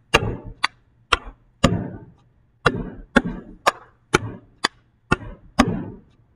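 Hands slapping flat on a desktop and striking each other in a rhythmic clapping-game pattern: about eleven sharp slaps and claps, roughly two a second, with a brief pause about two seconds in.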